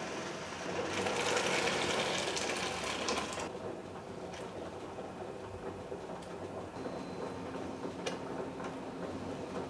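Large stainless-steel stockpot of water at a rolling boil, bubbling steadily, with a louder rush of splashing noise lasting about two and a half seconds near the start as ingredients are dropped in, then a few light clicks.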